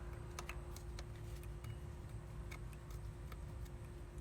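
Faint, scattered clicks and light taps of hands and tools working the air intake hose's clamps, over a steady low hum.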